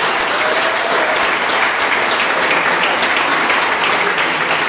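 A crowd of people applauding, many hands clapping steadily.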